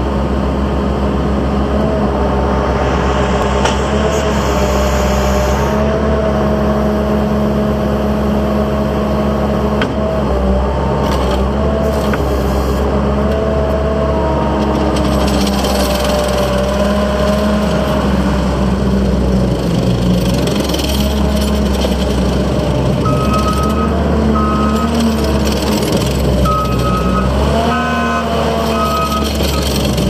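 Terex PT-75 compact track loader's diesel engine running steadily as the machine drives and turns, its pitch shifting a little with throttle. Short repeated beeps of a backup alarm sound in the last third.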